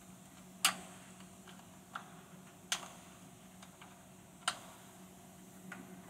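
A handful of sharp, irregularly spaced clicks and taps, the loudest under a second in, as a screw is turned by hand through a 3D-printed plastic bracket into a camera's base.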